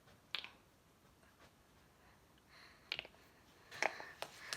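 Knuckles cracking: faint, short, sharp pops, one near the start and four or five more close together in the last second and a half.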